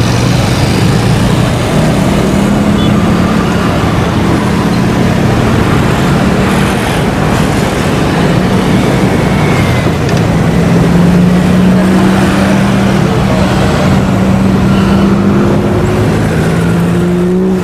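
An engine running steadily: a loud, continuous drone whose pitch wavers slowly, over a wash of noise.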